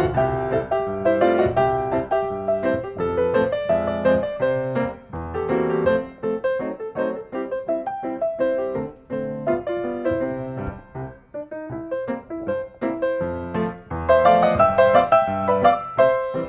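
Background piano music: a steady run of quick notes, softer in the middle and fuller again near the end.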